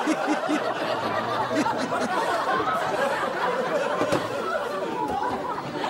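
Studio audience laughing, many voices together, easing off slightly toward the end.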